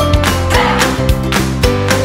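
Background music with a steady beat and held melodic notes.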